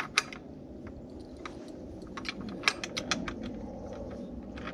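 Scattered sharp metal clicks and clinks of a socket wrench being fitted and worked on the bolts of a gate latch, most of them in a cluster about two to three seconds in.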